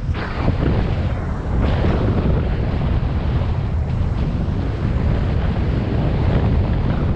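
Wind buffeting a GoPro's microphone as the mountain bike goes fast, a steady loud rumble.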